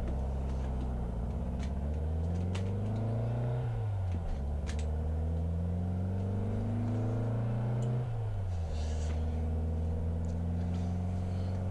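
A motor vehicle engine running in the background with a steady low hum. Its pitch climbs for a few seconds and drops back twice, like gear changes as it accelerates. Over it come light clicks and scrapes of a box cutter slitting packing tape and cardboard flaps being opened.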